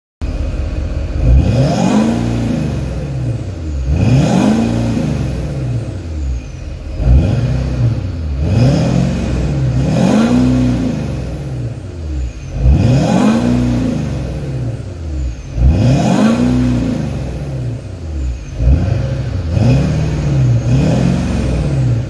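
LML Duramax 6.6-litre turbo-diesel V8 in a swapped Camaro, heard at the exhaust tips, revved again and again about every two seconds, its pitch climbing and dropping back with each blip of the throttle.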